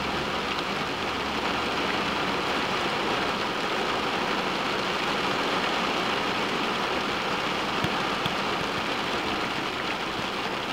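Steady rain falling on a car's windshield and roof, heard from inside the car as an even hiss.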